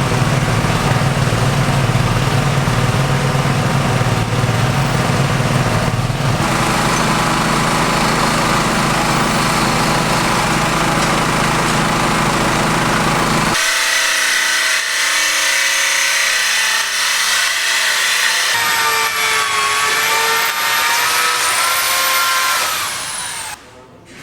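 Power tool motor running loud and steady, with its sound changing partway through. Near the end a whine wavers in pitch, then falls and stops.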